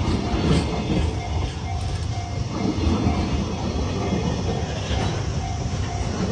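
Freight train rolling through a level crossing at a crawl: a steady low rumble of wagons with occasional sharp wheel clacks over the rail joints. A faint repeating ding from the crossing alarm rings over it.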